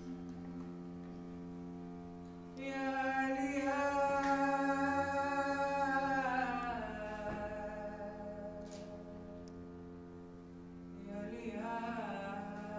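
A solo male voice sings long, held notes in an Indian style over a steady instrumental drone. The voice comes in about two and a half seconds in, slides down in pitch around the middle and fades, then comes in again near the end.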